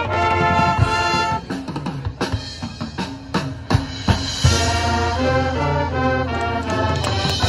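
Marching band playing its field show. Held brass chords, then a short passage of separate sharp drum hits from about a second and a half in, then the full band with brass and bass drums comes back in about four and a half seconds in.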